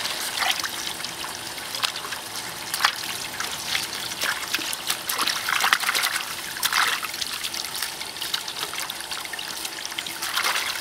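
A stream of water from a hose pipe pouring into a steel basin, with repeated splashing and sloshing as hands rinse leafy vegetables in the water.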